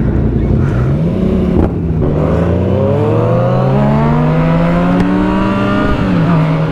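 Motorcycle engine accelerating through the gears: the revs rise, drop at a gear change about a second and a half in, then climb steadily for about four seconds before dropping at the next shift near the end.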